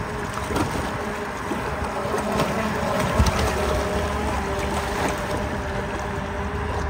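Radio-controlled model boat running on the water, its brushless electric motors giving a steady, slightly wavering whine over an even rushing noise of water and wind.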